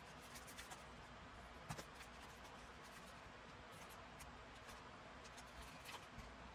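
Scissors snipping the corners off a piece of cardstock: a few quiet snips, the clearest about two seconds in, with light paper handling between.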